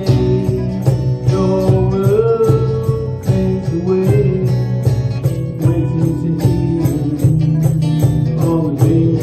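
A small band playing live: electric and acoustic guitars strummed over a steady cajon beat, with men singing.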